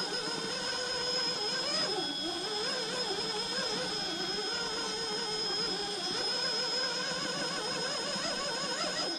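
RC rock crawler's brushless motor and transmission whining under throttle, the pitch wavering up and down as the truck strains on the rock for grip without climbing, with a steady high electronic whine underneath.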